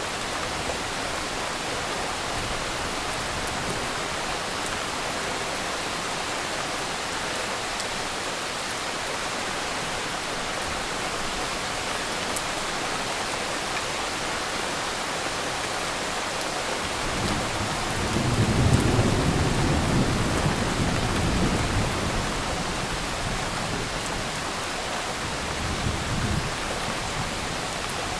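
Steady rain falling. A little past halfway, a long low rumble of thunder builds and dies away over several seconds, and a shorter, fainter rumble comes near the end.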